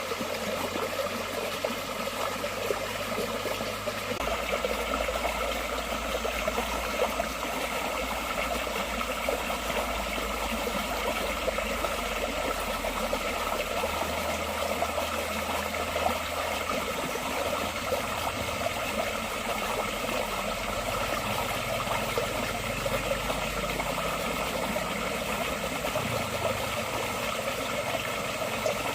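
Forest stream flowing steadily over rocks, a continuous, even rush of water. A faint low hum sits underneath and shifts pitch a few times.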